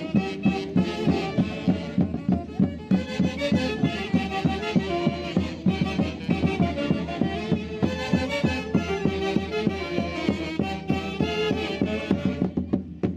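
Traditional Andean festival music played by a live band, with a steady beat of about three pulses a second.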